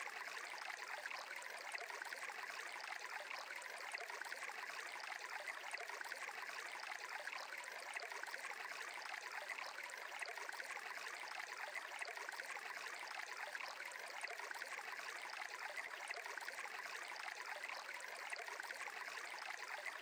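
Soft, steady sound of flowing water, like a gentle stream, with no changes or distinct events.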